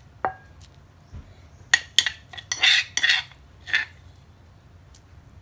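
A metal spoon clinks once against a stone mortar, then scrapes it four or five times, scooping out pounded garlic.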